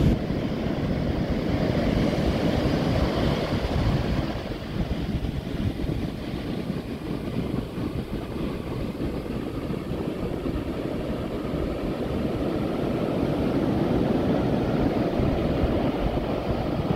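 Ocean surf breaking and washing up on a sandy beach: a continuous rushing noise of waves that is loudest in the first few seconds, eases off, then builds again near the end.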